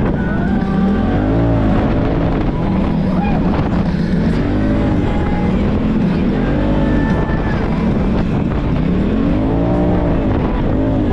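Side-by-side UTV engine revving up and down over and over as it drives a sandy trail, over a steady rush of wind and rumble.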